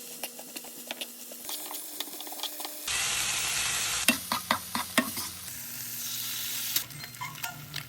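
Cabbage and Spam sizzling in a frying pan while being stirred, with the repeated clicks and knocks of a utensil against the pan. The sizzle swells louder about three seconds in and again past the middle.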